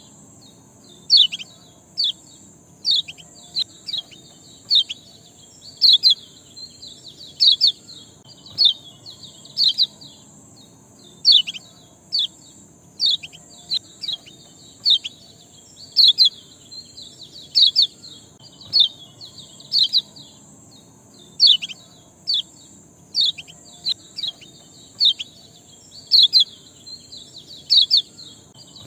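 A small bird's sharp 'ciak' chirps, repeated singly or in quick pairs about once a second, each note sweeping quickly downward: a chirping recording used as a lure to set caged songbirds singing. A steady high hiss runs underneath.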